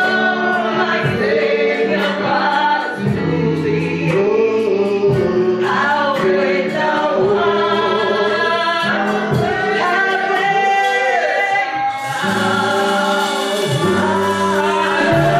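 A woman singing a gospel song into a handheld microphone, her voice amplified, with other voices joining in behind her over sustained low accompanying notes.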